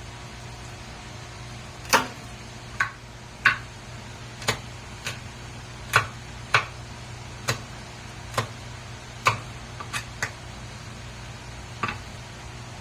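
Kitchen knife chopping garlic and onions on a cutting board: about a dozen sharp, unevenly spaced knocks, over a steady low hum.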